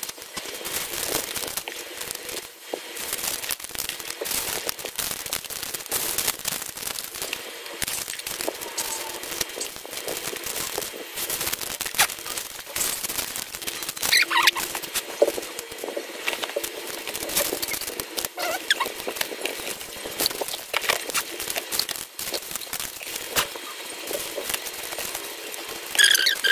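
Plastic bags full of beads crinkling, with the beads inside rattling, as packets are handled and laid into a plastic drawer: a steady run of small clicks and crackles. A brief high squeak comes about halfway through and another near the end.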